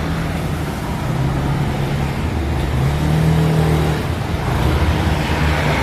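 Honda Scoopy scooter's 110 cc single-cylinder engine running on a test ride after a CVT repair. Its pitch rises and falls with the throttle over a steady rush of noise.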